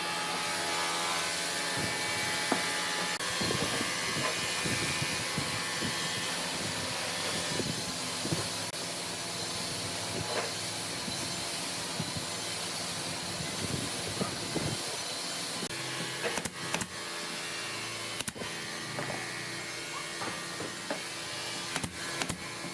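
An electric woodworking power tool running steadily, a motor hum under a constant hiss, with scattered light knocks of wood being worked.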